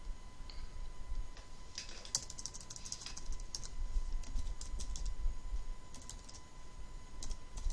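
Computer keyboard being typed on in several quick runs of keystrokes.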